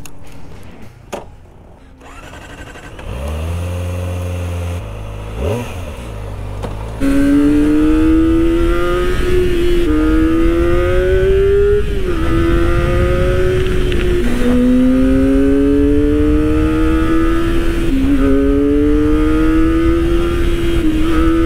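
Kawasaki Ninja ZX-25R SE's 250 cc liquid-cooled DOHC inline-four engine, heard from the rider's seat, accelerating hard through the gears. It is quieter for the first several seconds. Then the engine note climbs steadily in pitch through each gear and dips back at each upshift, about five times.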